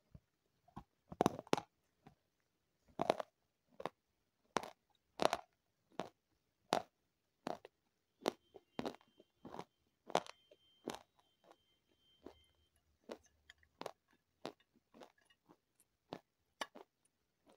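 Close-miked crunching and chewing of a brittle food: a crisp crunch about every half second to a second, the louder ones in the first half.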